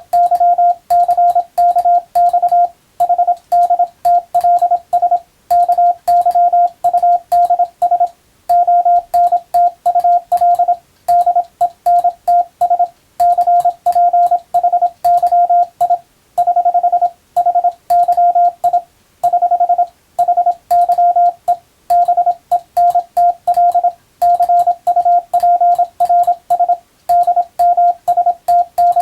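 Morse code (CW) tone: a single steady pitch keyed on and off in quick dots and dashes, with short pauses between characters and words, played for receiving practice.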